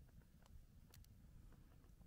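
Near silence, with a few faint pops from a campfire crackling.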